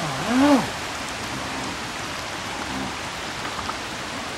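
Steady rushing of river water. In the first second, a pitched sound wavers up and down, loudest about half a second in, then stops.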